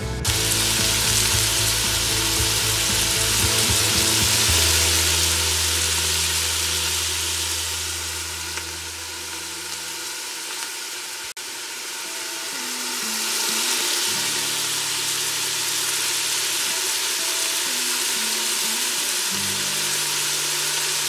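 Diced onions sizzling as they sauté in the stainless steel inner pot of an Instant Pot Duo electric pressure cooker on its sauté setting. The sizzle dips a little around the middle and picks up again.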